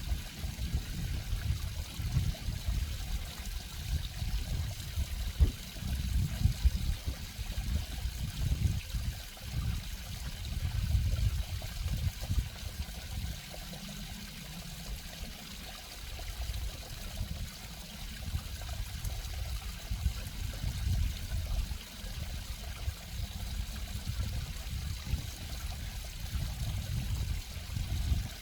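Water running and trickling steadily, with an uneven low rumble under a faint hiss.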